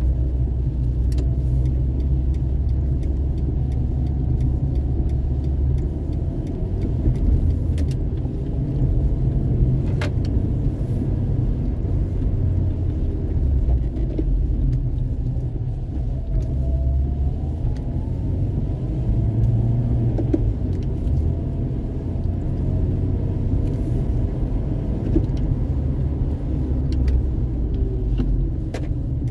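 Steady low engine and road rumble heard from inside a vehicle cabin while driving at town speed, with a few light clicks here and there.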